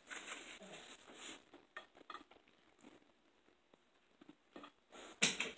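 Faint, scattered clicks and scrapes of a knife and forks on ceramic dinner plates as a meal of steak and vegetables is cut and eaten, with a brief louder noise near the end.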